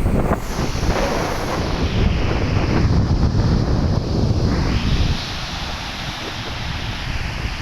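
Rough sea surf rushing and breaking under strong wind that buffets the microphone. A heavy rumbling surge fills the first five seconds, then eases to a lighter wash and hiss.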